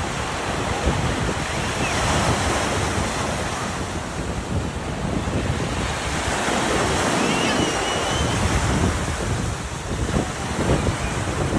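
Shallow surf washing up the beach, small waves breaking and running around the waders' legs, with wind noise on the microphone.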